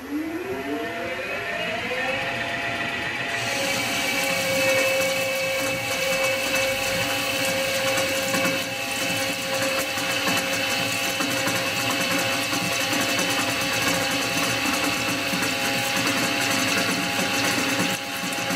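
Victor metal lathe spinning up, its whine rising in pitch over the first two seconds and then running steadily, while the tool takes a facing cut across the end of the metal workpiece, adding a steady hiss from about three seconds in.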